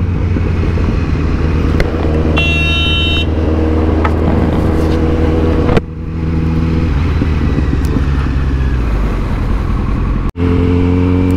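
Kawasaki Z900's inline-four engine running steadily at low to moderate revs, heard from on the bike. A vehicle horn honks briefly about two and a half seconds in. The engine sound cuts out for an instant near the end.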